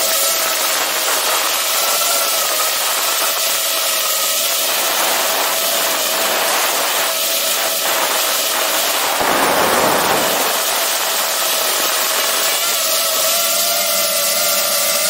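FPV racing quadcopter's brushless motors and propellers whining in flight: a steady high whine whose pitch wavers slightly, over a hiss of rushing air. About nine seconds in, a rush of wind noise swells for a second or so.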